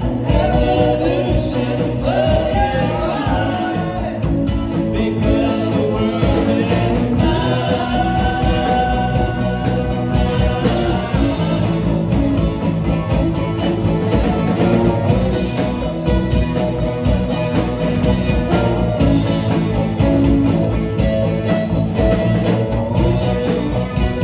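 Live psychedelic rock band playing a song on electric guitars and drums, loud and unbroken.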